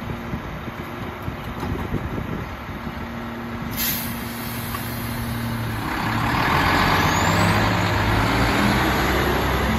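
Mack LEU garbage truck releasing its air brakes with a short, sharp hiss about four seconds in. The engine then revs up and gets louder as the truck pulls away, with a faint rising whine.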